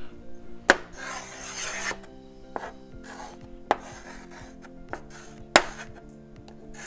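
Chalk writing on a children's easel chalkboard: scratchy strokes with three sharp taps as the chalk strikes the board.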